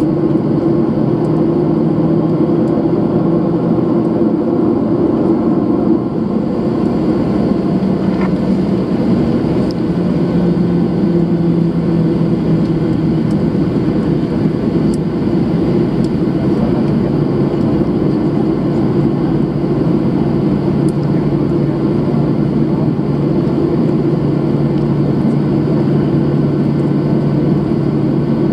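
Jet airliner's engines running at taxi power as the plane rolls along the taxiway, heard from inside the passenger cabin: a steady drone with a constant low hum.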